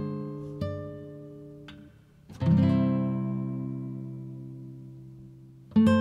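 Background acoustic guitar music. Plucked notes ring and fade, a strummed chord about two and a half seconds in rings out slowly, and fresh chords come in near the end.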